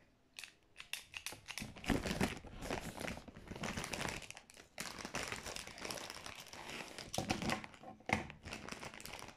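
An empty plastic chip bag crinkling and rustling in irregular bursts as it is handled and crumpled in the hands.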